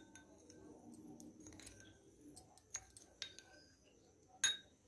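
Metal spoon stirring curd in a glass bowl: faint scraping with a few light clinks of the spoon against the glass, the loudest near the end.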